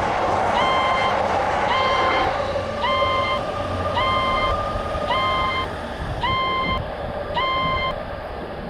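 Japanese railroad crossing warning bell ringing about once a second, over the rushing noise of a passing train that fades away in the first few seconds.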